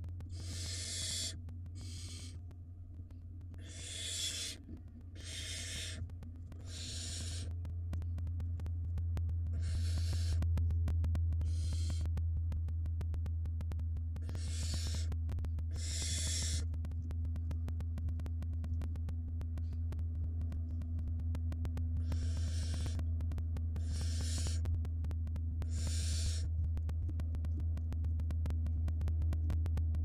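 Barn owl nestling's hissing begging calls: about a dozen rasping hisses, each under a second long, at irregular intervals with gaps between them. Under them runs a steady low hum, louder from about eight seconds in.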